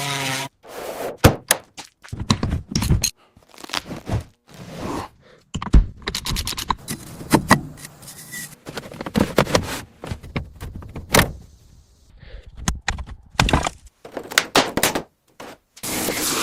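Workshop work on an old car: a string of knocks, thunks and scrapes from tools and parts being handled. It comes in short cut-together pieces with abrupt breaks between them.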